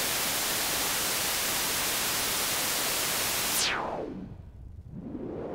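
White noise through an Erica Synths Polivoks-style voltage-controlled filter: a steady full hiss. About three and a half seconds in, the cutoff is swept quickly down and the noise turns dull and quieter, with a resonant whistle falling in pitch. Near the end the cutoff starts to sweep back up and the hiss brightens, the whistle rising.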